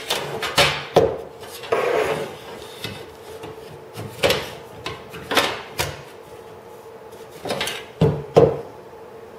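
Homemade wooden lever-and-block flange tool at work on a thin aluminium wing nose rib: a series of short wooden knocks and metal scrapes as the rib edge is pushed through and bent against the wood.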